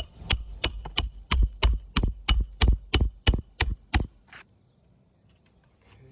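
A run of about a dozen sharp, evenly spaced knocks, about three a second, that stops about four seconds in.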